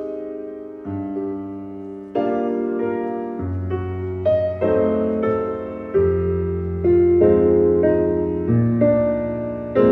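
Gentle piano background music: soft chords struck about once a second over a low bass line.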